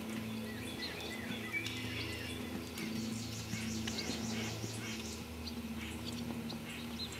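Small birds chirping and twittering in quick repeated calls, over a steady low hum.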